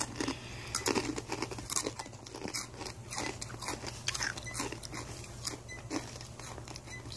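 Two people crunching and chewing Takis rolled tortilla chips: a quick, irregular run of crisp crunches.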